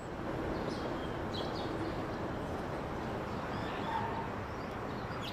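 Steady outdoor background noise with a few faint, short, high chirps in the first couple of seconds.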